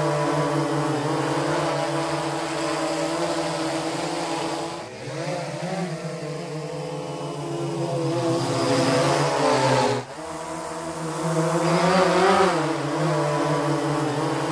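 Quadcopter drone rotors humming steadily, the pitch wavering and bending as it manoeuvres, with abrupt cuts about five and ten seconds in.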